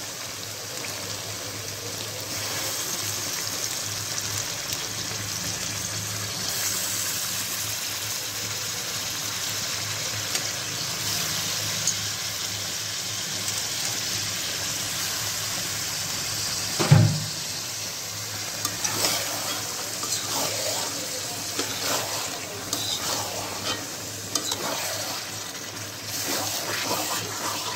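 Raw beef pieces sizzling in hot oil and fried onion-spice paste in a steel karahi, a steady frying hiss as the meat starts to sear. A single loud knock about 17 seconds in; in the last several seconds the metal spatula scrapes and clicks against the pan as the meat is stirred.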